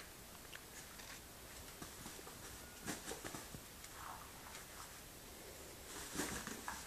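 Faint scuffling and pattering of two puppies playing on a wooden floor and in a fabric dog bed, in short clusters about three seconds in and again near the end.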